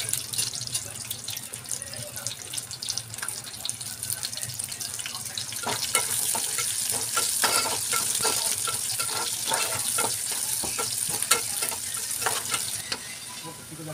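Sliced onions sizzling in hot oil in an aluminium pot, with a spatula scraping and stirring through them. The sizzle grows stronger about six seconds in and eases near the end.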